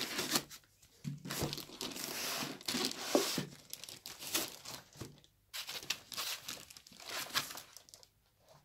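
Rustling and crinkling of foam packing blocks and the plastic-wrapped foam sleeve around a laptop as they are pulled out of a cardboard box. It comes in several bouts with short pauses between.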